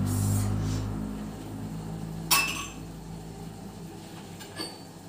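Steel kitchenware clinking: a sharp metallic clink about two seconds in that rings briefly, then a lighter clink near the end.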